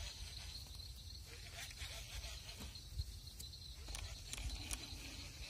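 Night insects chirring steadily in a constant high drone, with a few faint knocks about midway and near the end.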